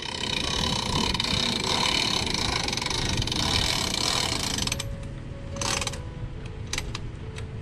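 Hand-cranked boat trailer winch ratcheting as it is wound to pull the boat onto the trailer. A dense run of clicking for about the first four and a half seconds, then quieter, with a few separate clicks.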